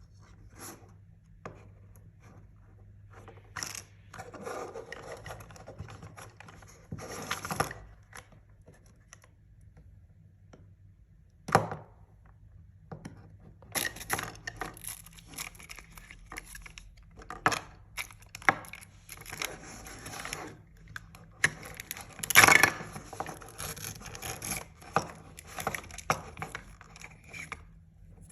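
Hands unwrapping and handling Mini Brands surprise toys: plastic packaging is torn and rustled in irregular bursts, with sharp clicks of small plastic pieces. The loudest clicks come about 11 seconds in and near 22 seconds.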